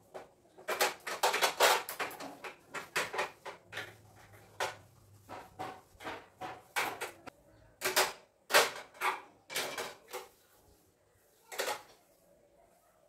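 A cloth rubbing over a stainless-steel two-burner gas stove, with irregular clatters and knocks of its metal parts as they are wiped and moved.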